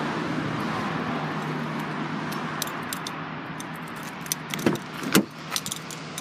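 Steady outdoor background noise, then a quick run of clicks and clunks, loudest about five seconds in, as a car door is unlatched and swung open.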